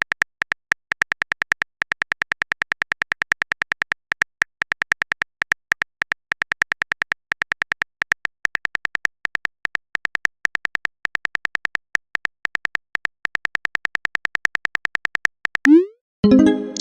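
Keyboard typing sound effect of a texting-story chat animation: a fast, even run of short electronic ticks, about seven a second. Near the end a short rising swoop and then a louder pitched chime, the sound of a message being sent and arriving.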